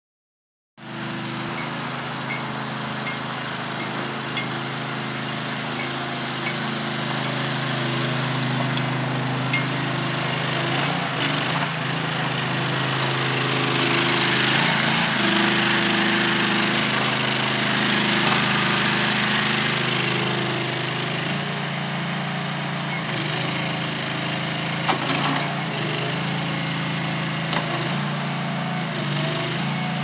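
Small engine of a Go-For GF6LM towable mini backhoe running steadily, a little louder in the middle.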